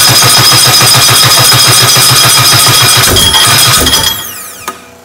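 Starter cranking a cold 1380cc BMC A-series four-cylinder race engine without choke, with a rapid, even compression rhythm. Near the end the engine coughs once or twice but does not keep running. The cranking stops with a falling whine as the starter spins down, then a sharp click.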